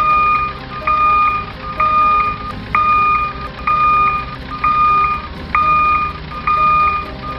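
Backup alarm beeping: a single steady tone, each beep about half a second long, repeating about once a second.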